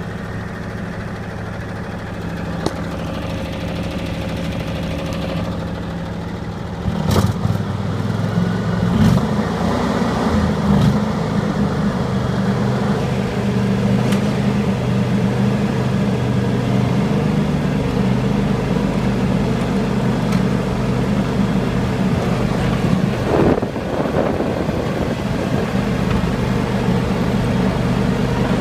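John Deere X720 lawn tractor's V-twin engine running, picking up speed about seven seconds in and then holding steady under load as the tractor pushes snow with its 54-inch front blade. A few short knocks are heard.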